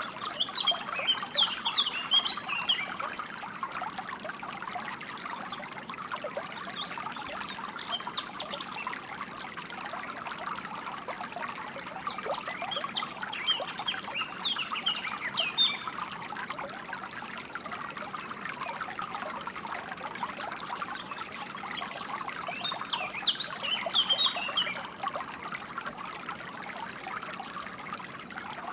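A small stream of water trickling and splashing steadily, with songbirds chirping in quick bursts of high notes, four times, several seconds apart.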